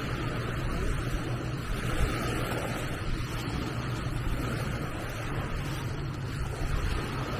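Steady seafront outdoor noise, a mix of wind, surf and distant traffic or boat engines, with no single sound standing out.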